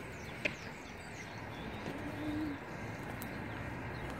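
A bird cooing once: a single low note about two seconds in, over a steady outdoor background hiss. There is a light click about half a second in.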